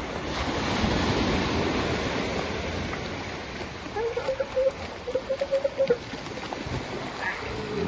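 Small waves washing up on a beach, then about four seconds in a seal gives two short, pulsing calls at a steady pitch, each under a second long.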